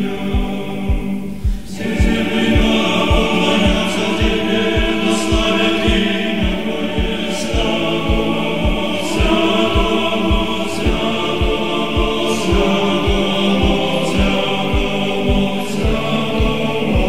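Background music: sustained choral voices over a steady low beat.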